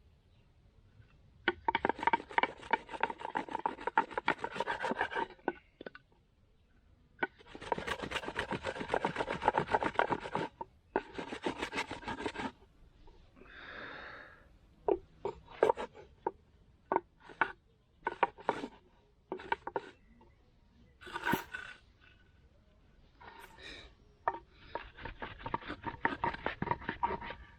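A cotton roll being rubbed hard back and forth between two flat wooden boards, a fast rasping rub in bursts of a few seconds with short pauses and separate knocks between them: friction-heating the cotton to make it smoulder.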